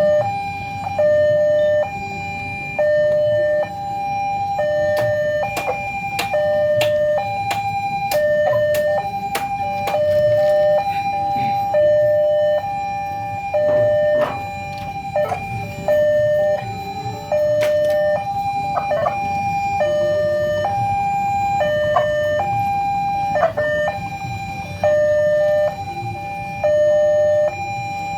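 Railway level-crossing warning alarm sounding an electronic two-tone signal, high and low tones alternating at an uneven, stuttering rhythm: the alarm is 'coughing' (batuk-batuk), glitching instead of keeping its regular beat. A low steady rumble runs underneath, with scattered sharp clicks through the middle.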